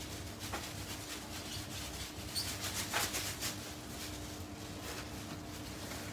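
Faint handling noise from white foam takeaway boxes: a few light scrapes and squeaky clicks, busiest just past the middle, over a steady faint hum.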